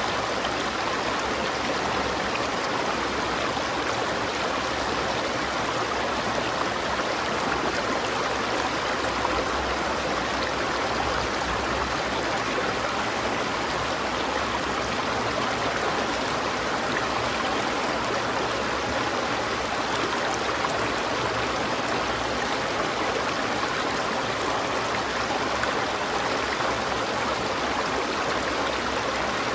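River water flowing steadily, an even rushing and babbling without pause.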